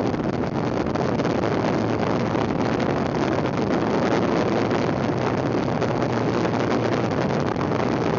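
Steady wind rush on the microphone mixed with the rumble of a folding kick scooter's small wheels rolling fast downhill over asphalt.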